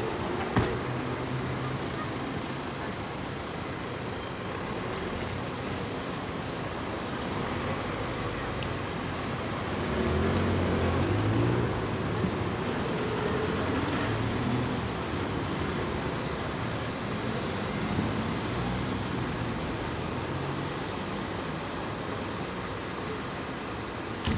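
Fire engine's diesel engine running steadily at a low drone, mixed with street traffic noise. It grows louder for a couple of seconds about ten seconds in.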